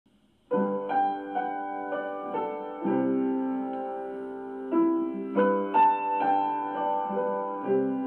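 Piano music that begins about half a second in: chords struck one after another, each left to ring.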